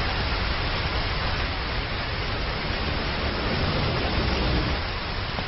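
Sound effect of heavy rain pouring steadily, with a low helicopter rumble underneath.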